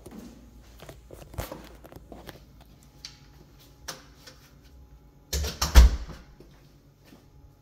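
Footsteps and small knocks as someone walks through a house. About five and a half seconds in there is a loud, deep thump lasting under a second.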